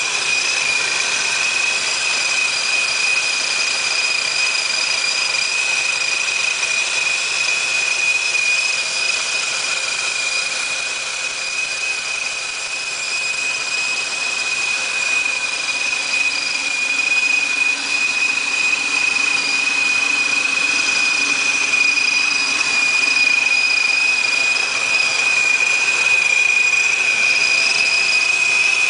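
Engine running at a steady speed, not revved, with the steady high whine of a gear-driven Paxton Novi 1000 centrifugal supercharger over the 4.6-litre V8.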